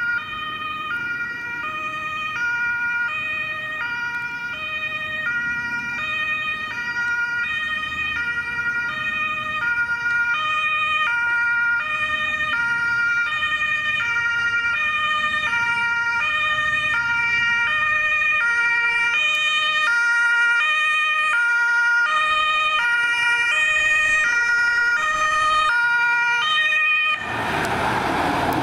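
Emergency vehicle's German two-tone siren (Martinshorn) alternating steadily between a high and a low note, slowly growing louder as the vehicle approaches. Near the end the siren cuts off and a louder rush of vehicle noise takes over.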